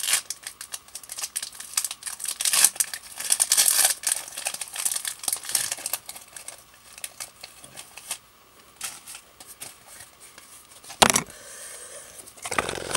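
Foil Pokémon trading card booster pack being crinkled and torn open: dense crackling for the first few seconds, then sparser rustles with a louder burst near the end.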